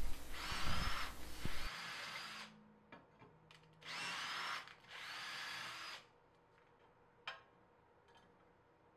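Power drill driving a thread tap into aluminium, run in three short bursts, the first about two and a half seconds long and the last two about a second each, with the motor whine rising as it spins up. A single sharp click near the end.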